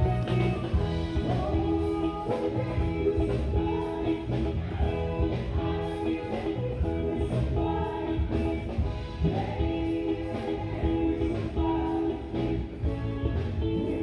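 Music: a song with a singing voice over instruments, playing continuously.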